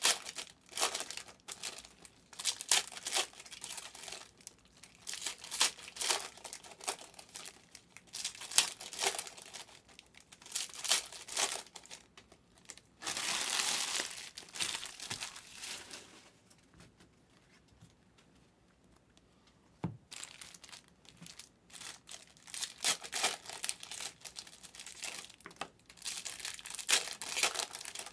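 Plastic-foil trading-card pack wrappers crinkling and tearing as packs are opened by hand, in irregular bursts, with a denser stretch about halfway and a pause of a few seconds after it.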